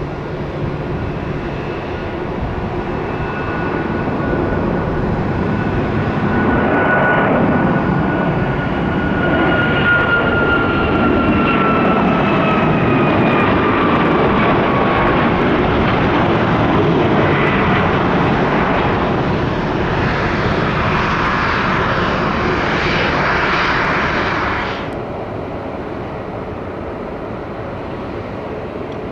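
Boeing 737 jet engines at takeoff power, a loud jet roar building as the airliner rolls, lifts off and climbs past, with a whine that falls in pitch as it goes by. Near the end the sound cuts off abruptly to a quieter, steady airliner engine noise.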